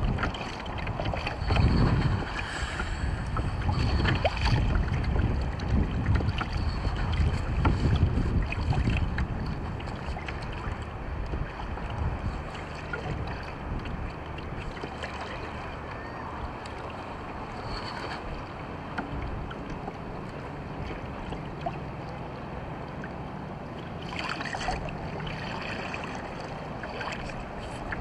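Wind buffeting the microphone over water lapping against a kayak's hull, heaviest in the first several seconds, then steadier.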